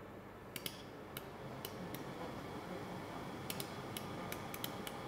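Laser welding machine firing single pulses, each a short sharp tick, about a dozen at uneven intervals in two bursts, as filler wire is welded into a defect in a tool-making part.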